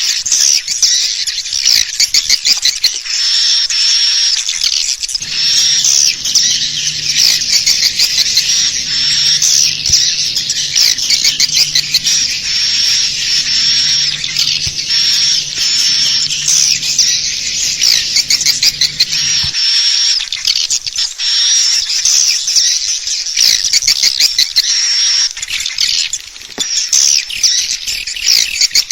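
Edible-nest swiftlets twittering in a dense, continuous stream of rapid high chirps: a swiftlet call recording of the kind played to lure swiftlets into a nesting house. A low pulsing hum runs underneath from about five seconds in and cuts off abruptly about two-thirds of the way through.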